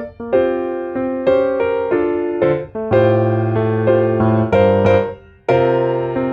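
Background music: a gentle piano tune played note by note with a steady pulse, pausing briefly twice.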